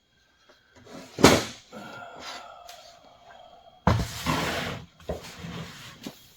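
Wooden knocks and scraping from an old wooden tool chest and its tools being handled: a sharp thump about a second in, a drawn-out tone for about two seconds, then a sudden rush of scraping near four seconds in, followed by a few smaller knocks.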